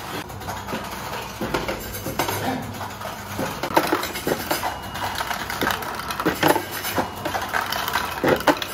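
Steel balls clinking and rattling irregularly as they run through the OK unloading chute of a steel-ball inspection machine into a plastic bin, over the machine's steady low hum.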